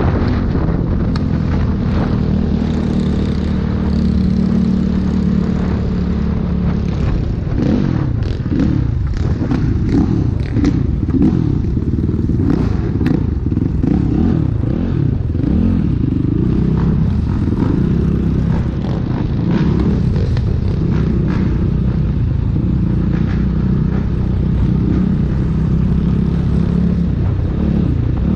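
Motorcycle engine running on the move, loud and steady, its pitch rising and falling repeatedly in the middle stretch as the throttle changes.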